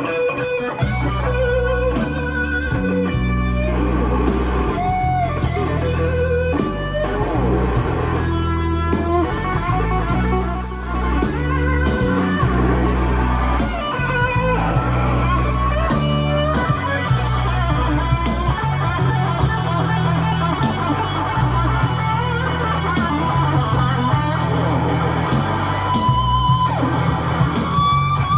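Instrumental rock intro with electric guitar and bass guitar, played back from cassette tape on a Sony TC-KA7ES deck.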